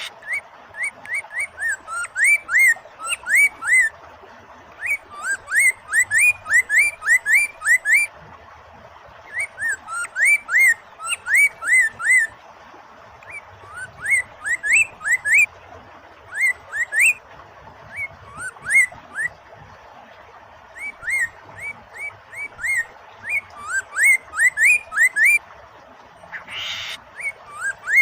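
Poksay mandarin (a laughingthrush) singing loudly in runs of short, rising whistled notes with brief pauses between runs, over the steady rush of flowing water. About 26 seconds in there is a short noisy burst.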